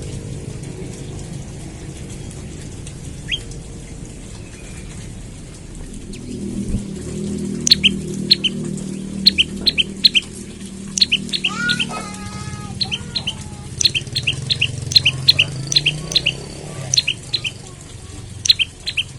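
Prenjak lumut calling: a single sharp, high chirp about three seconds in, then from about halfway rapid runs of sharp paired chirps. A few lower, falling whistled notes come near the middle, all over a steady low rumble.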